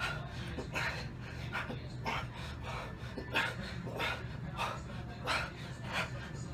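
A man's hard, rhythmic breathing from exertion during a high-rep set of 100 lb dumbbell bench presses, a sharp breath roughly every two-thirds of a second in time with the reps. A steady low hum runs underneath.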